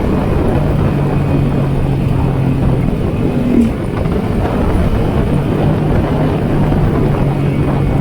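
Yamaha Sniper 150's single-cylinder four-stroke engine running at a steady cruise under a heavy rush of riding noise, with a brief change in the engine note about three and a half seconds in.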